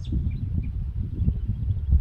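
Wind buffeting the microphone in an uneven low rumble, with a few faint bird chirps above it.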